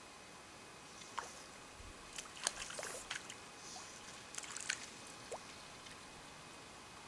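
A few small water splashes and sloshes at the pond's surface, in two short clusters about two seconds in and again past four seconds, over faint outdoor background.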